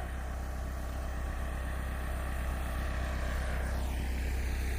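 Backhoe engine running steadily at low speed, slowly getting louder.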